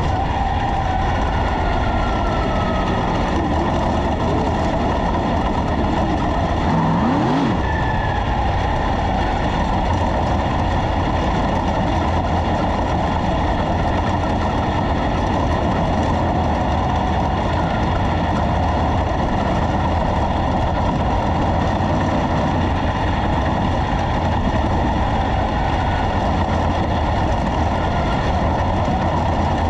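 On-board sound of a 410 sprint car's methanol-burning V8 engine running at a steady, even speed without revving up or down, loud and close from the cockpit.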